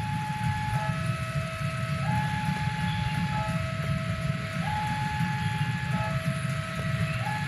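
A repeating two-tone warning signal alternating a higher and a lower note, each held for about a second and a quarter, over a steady low rumble of train machinery.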